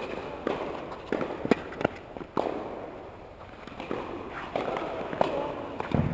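Tennis balls being struck and bouncing in an indoor tennis hall: about eight sharp pops, scattered irregularly, each with a short echo, among footsteps on the court.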